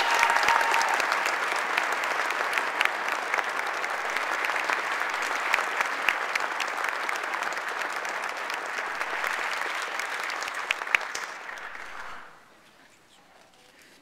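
Audience applauding, a dense clatter of many hands clapping, loudest at the start, that dies away about twelve seconds in.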